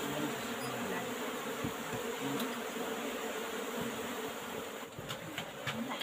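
A dense mass of Asian hill honeybees (Apis cerana indica) buzzing loudly in an opened wall hive, many wing tones overlapping and wavering. A few short clicks come near the end.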